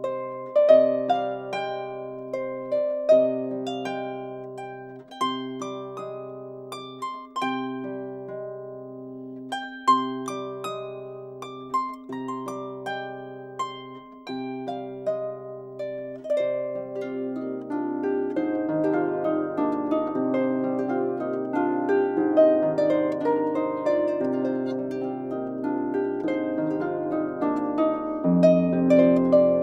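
Instrumental background music of plucked, harp-like notes over a repeating low figure, growing fuller and busier about halfway through.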